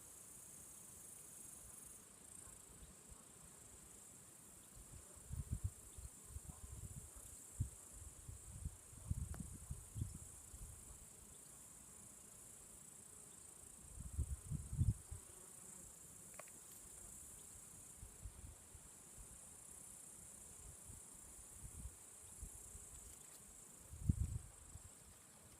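Steady high-pitched chirring of crickets or grasshoppers in a summer meadow, broken several times by short low rumbles, the loudest about halfway through.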